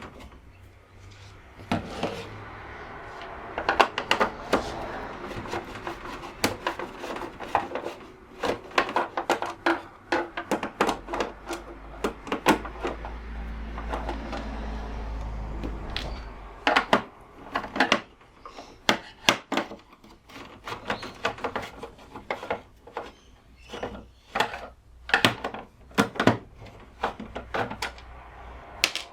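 Scattered knocks, clicks and rubbing from hands handling and cleaning the plastic case of an uninterruptible power supply (UPS). There is a low hum for a few seconds in the middle.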